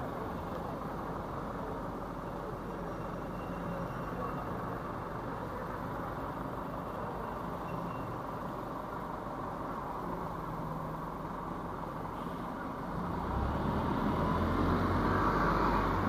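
City street ambience with traffic on rain-wet roads: a steady wash of tyre and engine noise. About thirteen seconds in, a vehicle's engine rumble grows louder and stays close.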